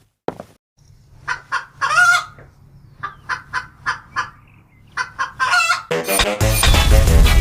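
Chicken clucking: groups of short clucks broken by two longer drawn-out calls. Loud music starts about six seconds in.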